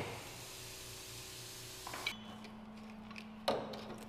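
A hammer blow on the steel of a manure spreader's front wall at the start, then a faint steady hum, with a single sharp metal knock about three and a half seconds in.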